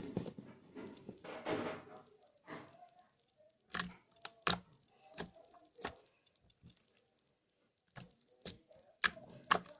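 Slime being squished and pressed by hand, with a wet squishing sound for the first two seconds and then a series of sharp clicks and pops about half a second to a second apart.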